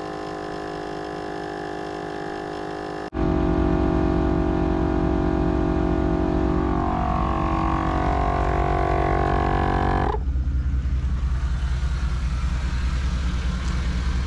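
ALLTOP 12V portable air compressor with a 0.7 horsepower motor running steadily while it inflates tires through a hose manifold. The sound shifts abruptly about three seconds in and again about ten seconds in, and becomes deeper with a fast pulsing near the end.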